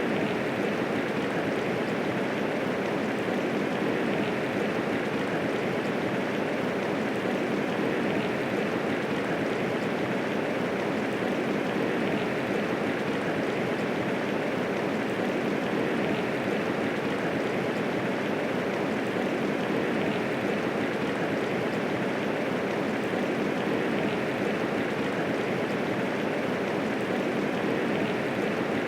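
Steady medium rainfall, an even hiss of rain with no thunder.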